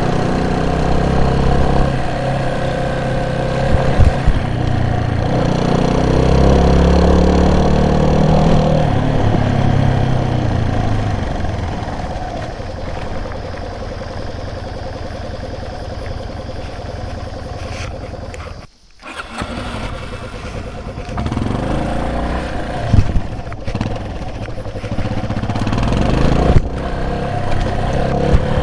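A vehicle engine running under way, its pitch rising and falling with the throttle, with a few sharp knocks. About two-thirds through the sound drops out almost completely for a moment, then the engine picks up again.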